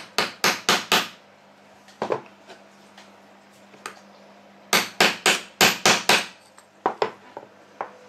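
Hammer blows on a steel punch held inside a Shimano BB-52 Hollowtech II bottom bracket cup, knocking out the cartridge bearing. A quick run of four sharp taps, a single one about two seconds in, then a faster run of about seven past the midpoint, followed by a few lighter taps.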